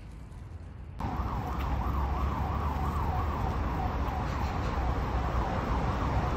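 A siren wailing in a fast rise-and-fall, about two to three cycles a second, starting abruptly about a second in, over a low rumble of wind on the microphone.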